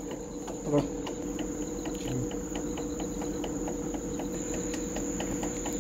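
Split AC outdoor unit running just after switch-on during refrigerant charging: a steady hum under a constant high whine, with a fast, regular ticking.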